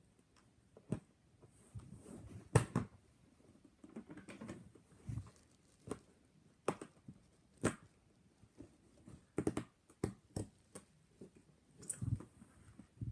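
Irregular clicks, taps and soft rustling of close handling, the loudest a sharp knock about two and a half seconds in, with a quick run of clicks around the ninth to eleventh second.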